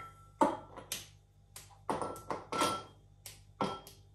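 Kitchen clatter: a series of short knocks and clicks from items being handled, a few of them followed by a brief ringing note.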